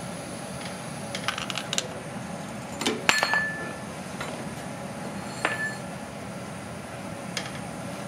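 Aluminium extrusion bars being handled and set down: a few light clicks, then two metallic clinks about two and a half seconds apart, each with a short ring. The first clink is the loudest.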